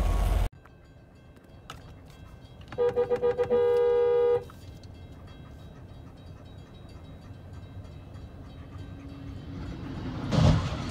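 A car horn gives about five quick toots and then one long blast, starting about three seconds in. Near the end comes a single loud crash as a passenger train hits a car at a level crossing. A loud rushing noise cuts off abruptly about half a second in.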